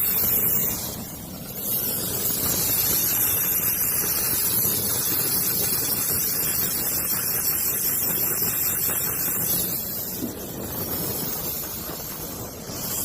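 Brazing torch burning on a low flame, a steady rushing hiss, as it heats a copper joint to flow the braze onto it. The hiss drops briefly about a second in and again near the end.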